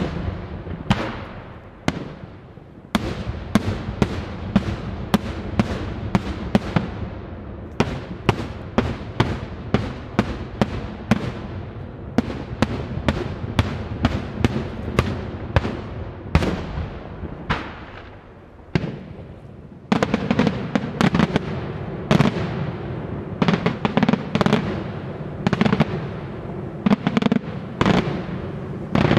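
Daytime aerial firework shells bursting overhead in a rapid string of loud bangs, several a second, with rolling echo between them. The bangs thin out briefly about two-thirds of the way through, then a denser barrage starts suddenly.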